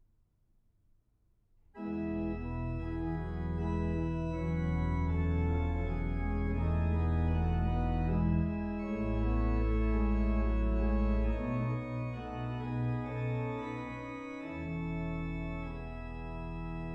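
Sampled pipe organ of St Annes, Moseley, playing through Hauptwerk virtual organ software. After a faint hiss, the music starts suddenly about two seconds in with sustained chords over strong low bass notes, and it grows lighter near the end.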